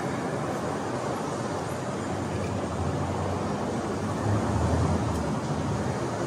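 Steady low rumble and noise of vehicles running, swelling for a second or two about four seconds in.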